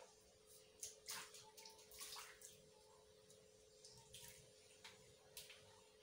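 Faint, short bursts of splashing and spraying water while a bird is washed: a quick cluster in the first two and a half seconds, then a few single bursts later, over a steady low hum.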